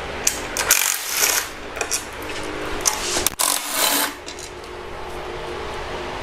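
Metal clinking and clatter of a hand wrench and loose 10 mm bolts as the bolts holding the engine's timing cover are taken out, in a couple of short clusters, about a second in and again around three to four seconds in.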